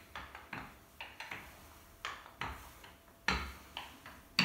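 Wooden rolling pin rolling out yeast dough on a floured countertop: a run of irregular knocks and clicks, roughly two a second, as it is pushed back and forth, the strongest near the end.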